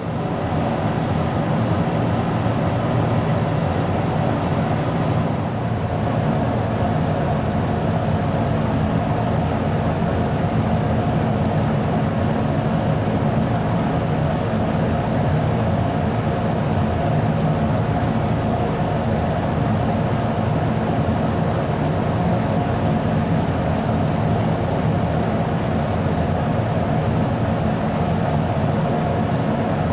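Steady hum and air rush of a stationary 485-series electric train's onboard equipment, heard inside the passenger cabin, with a few held tones over the noise. About five seconds in the sound settles into this even drone.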